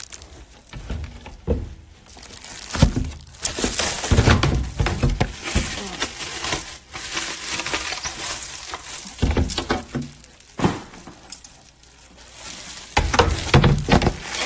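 Cling film being stretched and crinkled tight over a bowl: irregular bursts of rustling and crackling with a few knocks.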